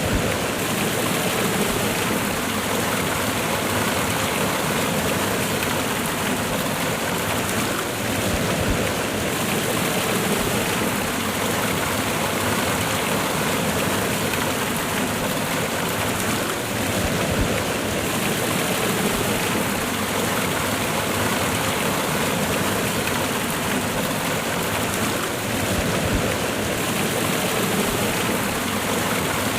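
Waterfall cascade: water pouring and splashing over rocks in a steady, even rush.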